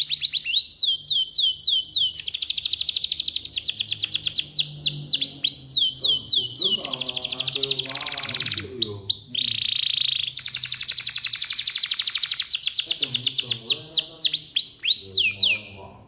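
Male domestic canary singing a long, continuous song of fast trills, each a rapid run of repeated notes sliding down in pitch, switching to a new trill every few seconds. A short harsh rasping note comes about ten seconds in, and the song stops near the end.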